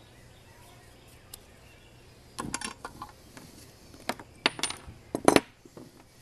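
A run of sharp metallic clinks and clatters, starting about two and a half seconds in and loudest about five seconds in, as pliers and small metal parts of a recoil starter are handled and set down.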